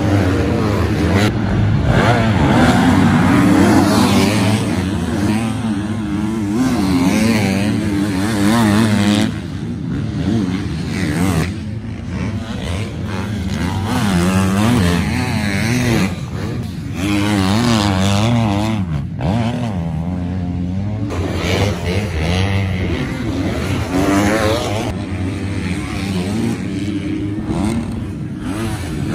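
Motocross dirt bike engines revving up and down as riders work through a rutted, muddy track. The pitch rises and falls again and again, and it dips briefly between passes.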